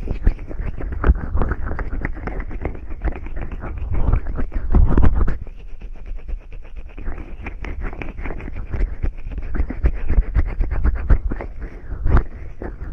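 Fingers massaging cream or oil behind a binaural microphone's silicone ear: close, loud, wet rubbing and squishing strokes in quick succession, with a few heavier swells about four to five seconds in.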